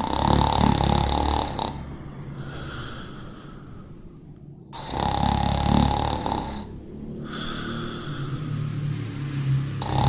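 A golden retriever snoring in her sleep: a loud rasping snore about every five seconds, with quieter breaths in between.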